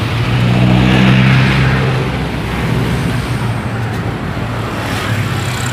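Street traffic with a motor vehicle engine running close by, its low hum swelling during the first two seconds, easing off, and coming back near the end.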